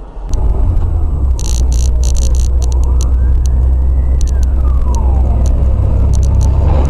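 Steady, loud low rumble of a vehicle on the road with scattered sharp clicks. An emergency siren wails once, rising then falling, from about three to five and a half seconds in.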